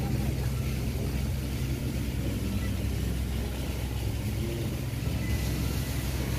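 An engine running steadily, a low even rumble.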